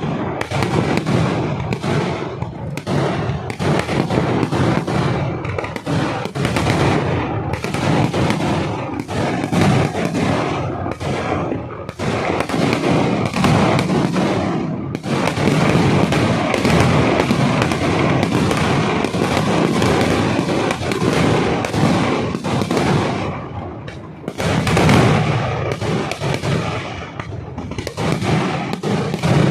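Daytime festival fireworks (Kerala vedikettu): a dense, unbroken barrage of firecrackers going off in rapid succession, with a few brief lulls along the way.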